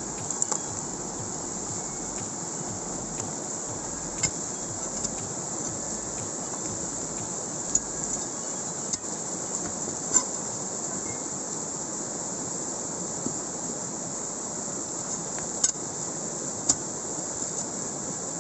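Fast mountain stream rushing over rocks, a steady hiss. Now and then comes a sharp click of a steel bar or chisel striking rock as a crevice is worked for gold-bearing material, about half a dozen times.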